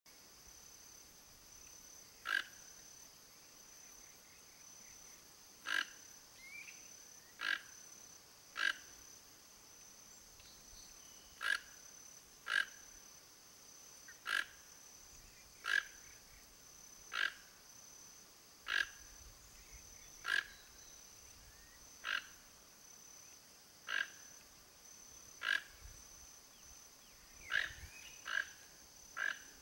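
Toco toucan calling: a series of short, rough croaks, one every one to two seconds, coming closer together near the end.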